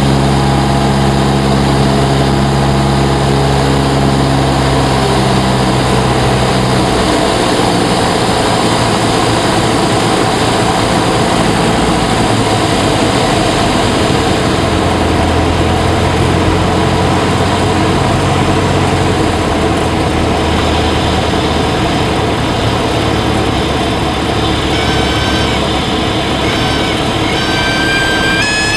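Cessna 172S's four-cylinder Lycoming engine and propeller running steadily, with a loud rush of air and engine noise. The engine note changes and drops about six seconds in, typical of power being reduced for the landing.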